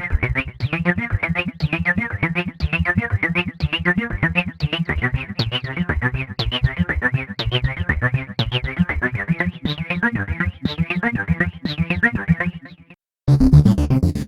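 Modular synthesizer playing a fast sequence of short, plucky notes that fades out about thirteen seconds in. After a brief silence, a denser, louder electronic pattern starts.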